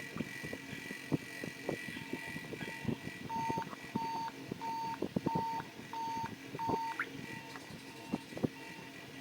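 A run of six short electronic beeps, about one and a half a second, with fainter beeps just before them, among light clicks and taps from handling.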